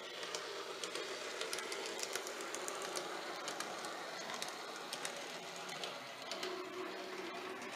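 N gauge model train running on the layout's track, its wheels clicking irregularly over rail joints and points against a steady small-motor hum.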